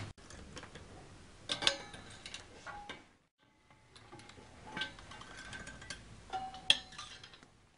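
Metal clinks and light clanks as a cafe barrier's metal cross-rail clip is hooked onto the flanged top of a chrome post, each with a brief metallic ring. The loudest clinks come about one and a half seconds in and near the end.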